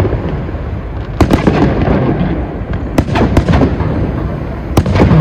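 Aerial display fireworks going off: a loud run of sharp bangs over a steady rolling rumble, with the strongest cracks about a second in, around three seconds in, and near the end.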